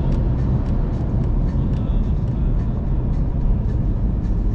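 Steady road and engine noise of a car driving on the interstate, with faint irregular ticks over it.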